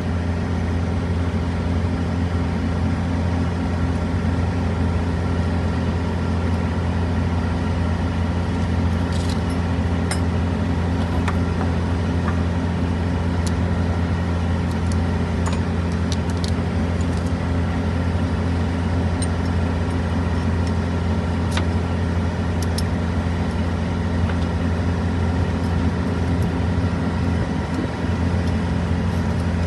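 Semi-truck engine idling steadily with a constant low hum, with a few faint light clicks about a third to three-quarters of the way through.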